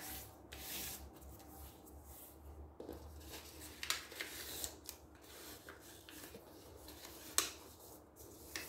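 A sheet of white paper being slid, folded and pressed flat by hand on a wooden table: rustling and sliding, broken by a few short, sharp crackles, the loudest about three-quarters of the way through.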